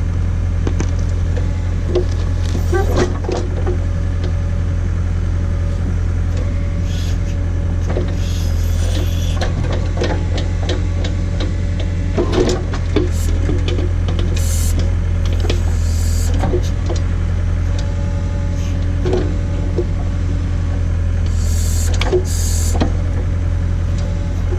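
John Deere 317 skid steer's diesel engine running steadily while its Davis D100 backhoe attachment digs. Scattered knocks, creaks and short hisses come from the working backhoe.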